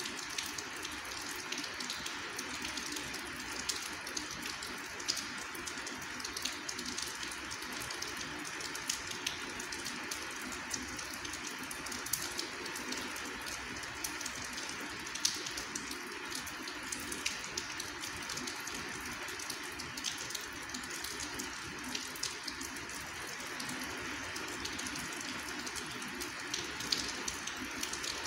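Steady rain falling, an even hiss with scattered drops ticking irregularly.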